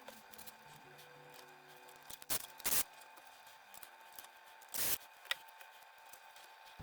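Three short, sharp handling noises from work on the PC parts: two close together a little over two seconds in, and one near five seconds. Light clicks fall between them, over faint background music.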